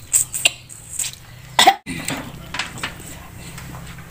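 Close mouth sounds of biting and chewing clusters of small sour seeds or berries stripped off a stalk with the teeth, several short crunchy clicks, with a short cough about two seconds in.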